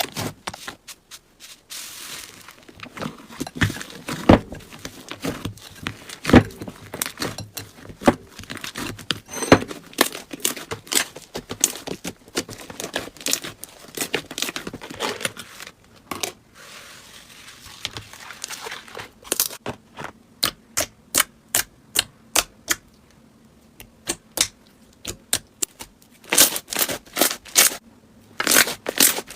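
Hands pressing, poking and squishing slime, making many sharp clicks and crackling pops. The pops are scattered at first and come in quick, even runs of clicks later on.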